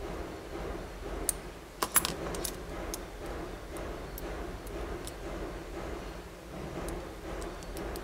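Small metal suspender adjuster clips and slide buckles clicking and clinking as they are handled, with the loudest cluster of clinks about two seconds in and a few fainter ticks later.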